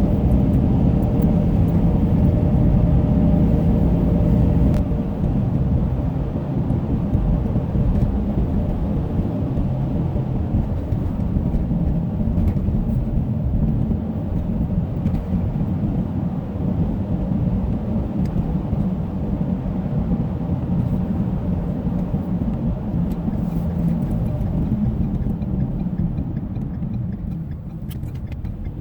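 Car driving on a snow-covered road: steady low road and tire noise from studded winter tires, with a few faint ticks. It eases slightly about five seconds in.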